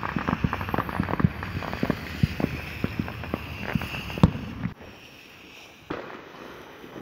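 Ground fountain firework spraying sparks, with a hiss and dense rapid crackling. A single sharper pop comes a little past four seconds in. The crackling then drops away for about a second before a fainter hiss starts up again.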